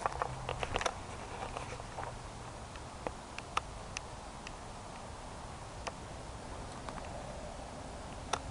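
Scattered light clicks and crackles, several bunched in the first second and then sparse, over a steady background hiss.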